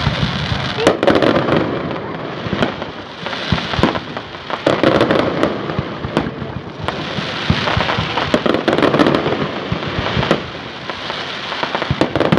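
Fireworks display: a steady run of sharp bangs and reports with recurring swells of dense crackling.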